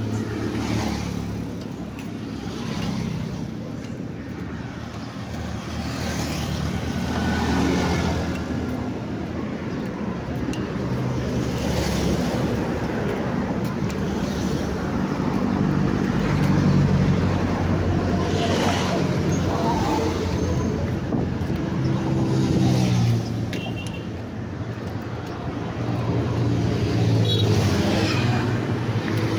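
Road traffic on the dual carriageway alongside: vehicles pass one after another, so the engine hum and tyre noise swell and fade every few seconds.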